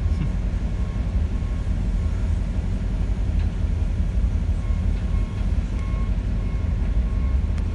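Steady low engine rumble of a running vehicle or machine, with no sharp knocks or bangs.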